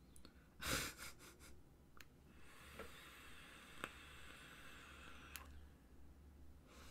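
Faint breathing through a vape: a short breath about half a second in, then a drag of about three seconds with an airy hiss and a few light clicks.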